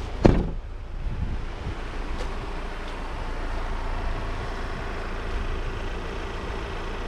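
The 2018 Ford Tourneo Custom's 2.0 TDCi four-cylinder diesel running with a steady low rumble. A single sharp thump comes just after the start.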